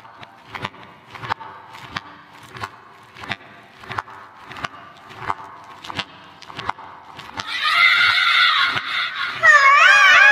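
Steady clock-like ticking for about seven seconds. Then a high cry with a wavering pitch comes in, getting louder and trilling near the end.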